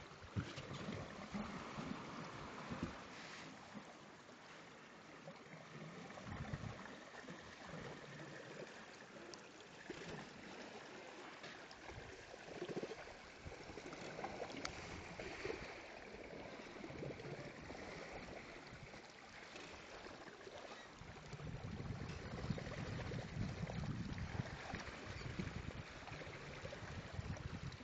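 Water rushing and gurgling along the hull of a sailboat under way, with low wind buffeting on the microphone that is strongest in the last several seconds.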